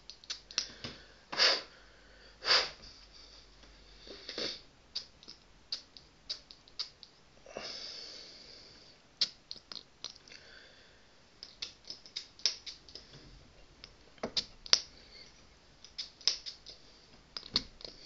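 A small clear plastic bottle of alcohol spray being handled and shaken: many light plastic clicks and rattles, with a few short hisses a few seconds apart and a longer one about eight seconds in.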